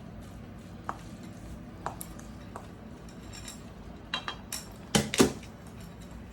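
Cutlery clinking against dishes during a meal: a few light clinks, then a louder cluster of clinks about four to five seconds in.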